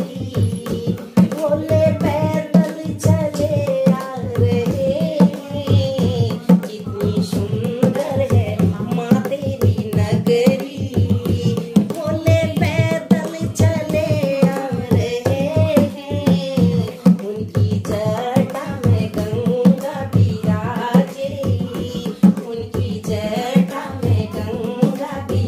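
Women singing a Hindu devotional kirtan (bhajan), accompanied by a dholak played with the hands and by hand claps, keeping a steady beat.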